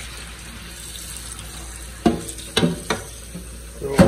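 Cold water running from a kitchen faucet onto blanched green beans in a pan in a stainless steel sink, shocking them to stop the cooking, with a hand turning the beans. A few sharp knocks about two seconds in and again near the end.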